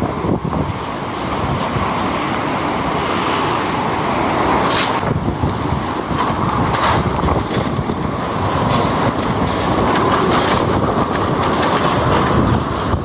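Typhoon wind blowing hard across the microphone: loud, continuous rushing noise that rises and falls with the gusts.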